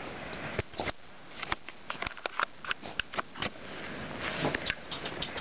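A dog snuffling with its nose down in snow, among irregular short crunches.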